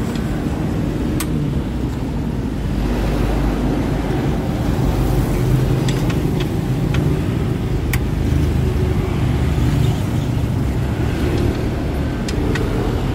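Steady low rumble of motor-vehicle traffic, with a few short sharp clicks scattered through it.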